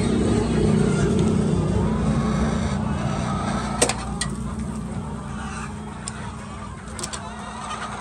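A steady low rumble, strongest in the first few seconds and then easing off, over faint clucking of laying hens. A few sharp clicks come about four seconds in and again near the end.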